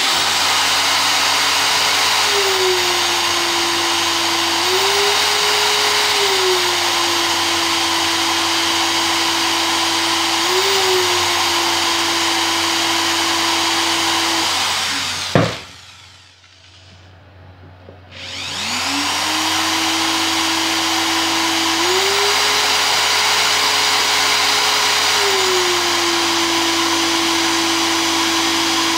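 Bosch GSR 7-14 E corded drill-driver boring through 30 mm hard timber. The motor runs loud and steady, its pitch stepping down and back up several times as the bit loads. About halfway through it stops with a sharp click, then starts again and runs on.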